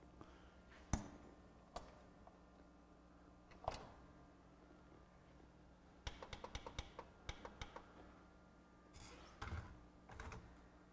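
Light, scattered clicks and taps of plastic and metal parts being handled in a Pioneer PD-DM802 CD changer's disc-magazine mechanism, which is jammed by a stuck disc tray. Two sharper clicks come in the first four seconds, then a quick run of small clicks lasts about a second and a half, and a few more follow near the end.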